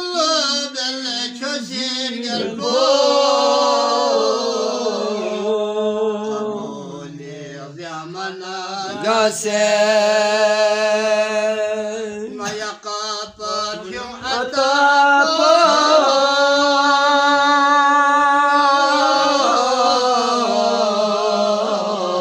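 A man singing a devotional qasida unaccompanied, drawing out long wavering, ornamented notes. He breaks off briefly twice, about a third and two-thirds of the way through.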